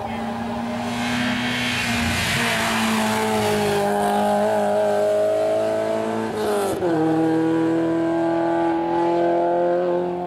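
Saloon race car's engine accelerating hard up a hillclimb, its pitch climbing steadily. About two-thirds of the way through it drops for a quick upshift, then climbs again.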